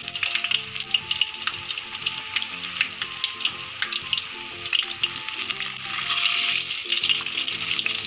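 Batter-coated eggplant slices deep-frying in hot oil in an aluminium wok, crackling and sizzling, while a metal spoon stirs and pushes the slices apart. The sizzle swells louder for a moment about six seconds in.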